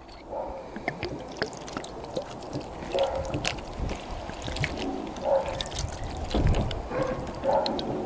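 White wine poured from a glass bottle into a metal roasting tray of lamb shanks, splashing and trickling over the meat and pooling in the pan.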